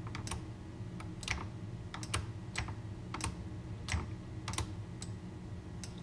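About a dozen scattered, irregular clicks from a computer mouse and keyboard at a desk, some in quick pairs, over a faint steady hum.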